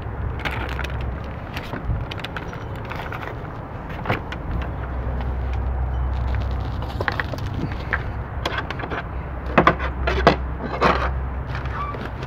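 Scattered knocks and clicks of plastic kayak fittings being handled: a fishing rod, the flag pole and rod holders pulled from their mounts, then the kayak seat being folded down, with a cluster of louder clacks near the end. A steady low rumble runs underneath.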